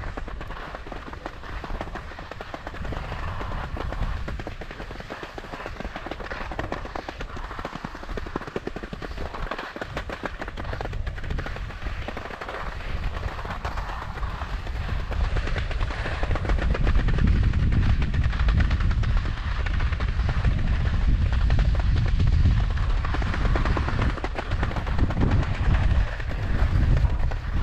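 Skis scraping and chattering over hard, rutted spring snow while being towed uphill on a T-bar, a dense rapid crackle. A low rumble joins in and gets louder about halfway through.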